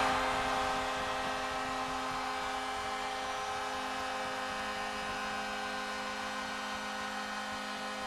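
Charlotte Checkers' arena goal horn held in one long, unbroken blast of a steady low chord, signalling a home goal, over a cheering crowd.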